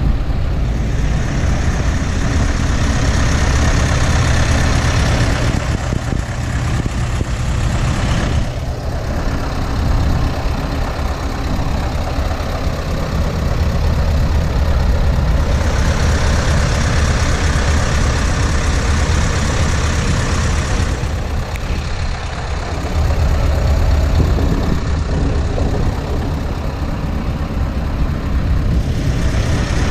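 Scania S650's 16-litre V8 diesel idling steadily with a deep, even hum; a broader hiss swells and fades twice over it.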